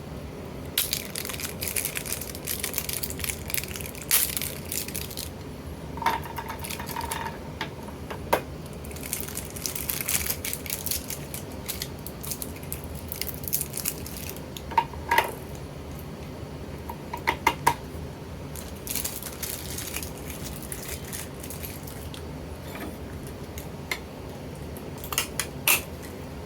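Batteries being handled and fitted into a smart lock's battery compartment: bursts of plastic clicks, rattles and scraping, with a few brief tones in the middle.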